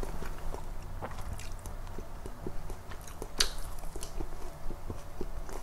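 Close-miked chewing of chicken nuggets: irregular soft mouth clicks and wet smacks, with one sharper click a little past the middle.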